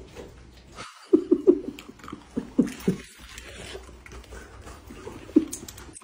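A small dog giving short, sharp barks in quick clusters: a few about a second in, three more a little later, and a single one near the end.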